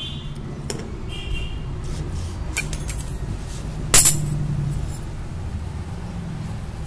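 Metal clinks as a Honda Activa clutch shoe assembly and a metal tool are set down on a concrete floor: two light clicks, then one sharp ringing clink about four seconds in. A steady low rumble runs underneath.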